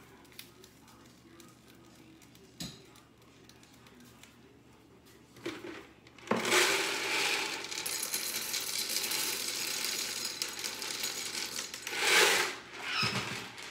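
Dry noodles poured out of a plastic bag into a measuring cup, making a dense rattling patter of many small pieces. It starts about six seconds in and lasts about six seconds, peaking near the end.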